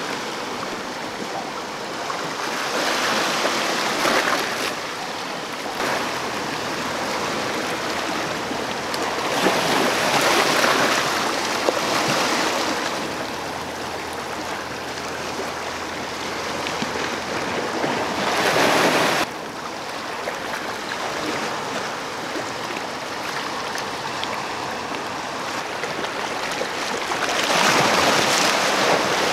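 Sea waves washing over a rocky shore: a steady rush that swells and falls back every several seconds. One swell cuts off suddenly about two-thirds of the way through.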